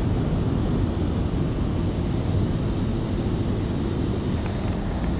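Automatic car wash air dryers blowing on the car, heard from inside the cabin as a steady, even rush of air.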